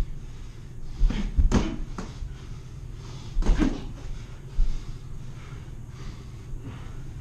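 Boxing gloves thudding as punches land in sparring: a quick cluster of hits about a second in, another pair around three and a half seconds in, and a single hit about a second later.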